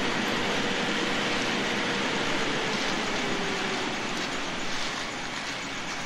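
Steady machinery noise from a concrete pump truck and ready-mix mixer running during a slab pour, with a faint tone that slides slowly lower over the first few seconds.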